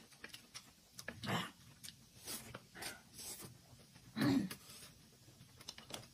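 A person slurping noodles and chewing, with two louder slurps about a second in and after about four seconds, and smaller wet sucking and mouth clicks between them.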